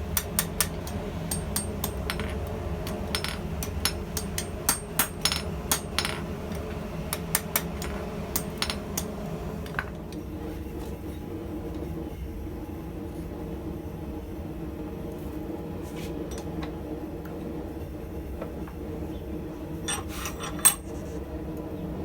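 Hammer striking steel on an anvil: a run of irregular ringing blows in the first half, then a pause and a few more blows near the end, adjusting the newly joined tongs. A steady low hum runs underneath.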